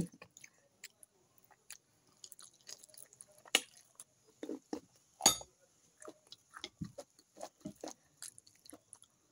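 A person chewing a mouthful of fish stew and rice close to the microphone: scattered soft, wet mouth clicks and smacks, with two louder ones about three and a half and five seconds in.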